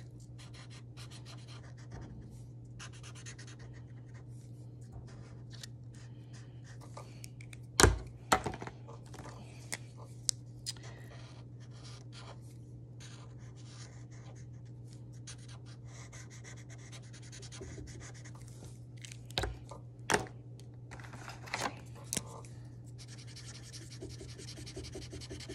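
Mr. Sketch felt-tip markers stroking across paper in short spells as small shapes are coloured in. A few sharp clicks and knocks come through, the loudest about eight seconds in and a cluster near the end, over a steady low hum.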